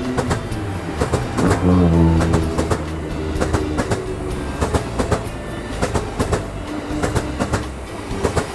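JR West electric train passing, its wheels clattering over rail joints in a quick run of sharp clicks over a steady rumble, loudest about two seconds in.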